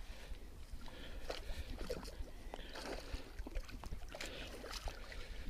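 Water sloshing and splashing at irregular moments as a hooked pike thrashes near the bank while being played in on the rod.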